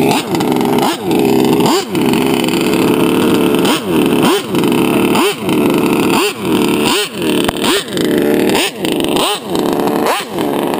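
Large-scale RC car's small two-stroke engine revving hard, its pitch rising and falling in repeated surges about once a second as the car is driven.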